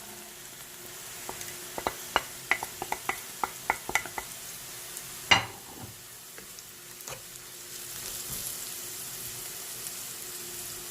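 Onions and garlic frying in oil in a pot, sizzling steadily, as spices go in and are stirred: a quick run of sharp clicks from the utensil against the pot about two to four seconds in, one louder knock a little after the middle, and the sizzle growing louder near the end.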